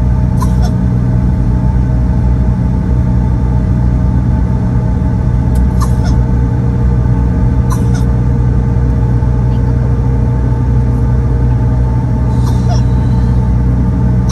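Cabin noise of a Bombardier CRJ-900 taxiing: a steady low rumble from its rear-mounted General Electric CF34 turbofans at low power, with several steady whining tones over it. A few brief light clicks come and go.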